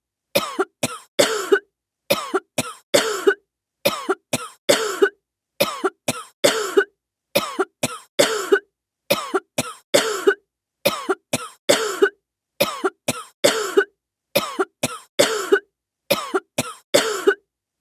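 A coughing sound effect looped over and over: each round is three quick coughs, the last one longest, repeating about every second and three quarters with silence between.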